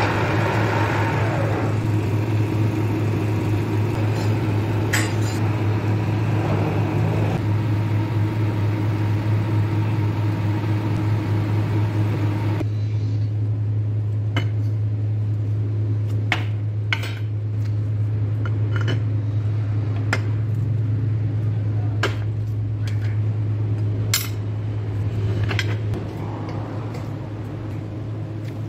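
Metal lathe running with a threaded steel part spinning. About halfway through it gives way to scattered sharp metal clinks and knocks as steel parts are handled on a steel plate, over a steady low hum.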